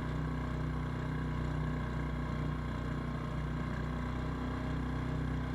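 Small fishing boat's motor running steadily at trolling speed, a constant low engine drone.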